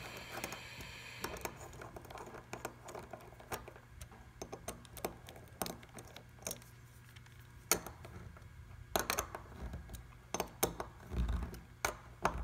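Scattered small metal clicks and ticks of a T-handle hex key working socket head cap screws, snugging the seal cap down onto a stainless centrifugal pump back plate; a few sharper clicks come in the last few seconds.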